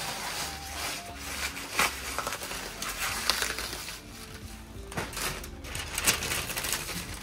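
Light background music, a melody of short held notes, with scattered sharp clicks and crinkling noises over it.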